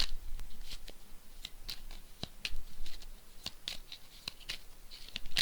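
Tarot cards being shuffled and handled by hand: a run of irregular light flicks and snaps of card stock, several a second.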